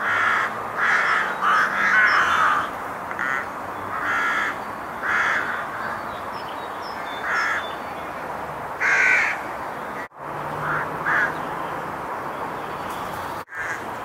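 Rooks cawing: about a dozen short, harsh caws at irregular intervals, some in quick pairs, over a steady background hiss. The sound drops out briefly twice near the end.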